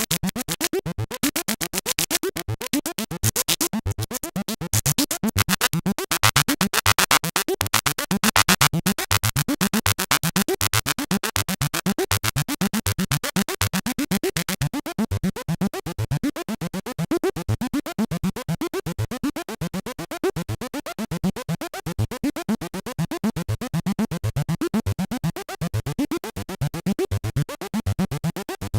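Dave Smith Instruments Prophet '08 analog synthesizer playing a fast, steady stream of short repeated notes with swooping low pitches, like an arpeggiator pattern. A bright, hissy top layer drops away about halfway through, leaving a duller sound.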